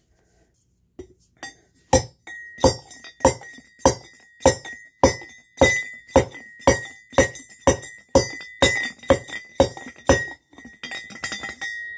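A hand pipe-style ore crusher is crushing gold ore. A heavy pestle is driven down again and again onto the rock inside the tube, giving sharp clanks nearly twice a second with a high ring hanging on between them. Near the end the strikes get lighter and quicker.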